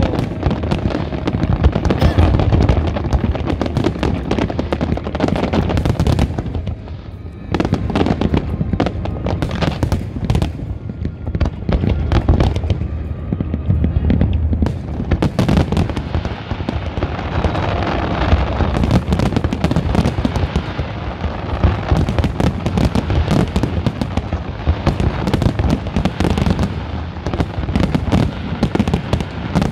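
Large fireworks display: a dense, continuous barrage of shell bursts and crackling, easing off briefly about seven seconds in.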